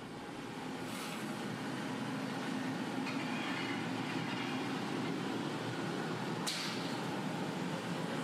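Steady roar of a glassblowing glory hole, the reheating furnace with a glass gather held in its opening, with a sharp click about six and a half seconds in.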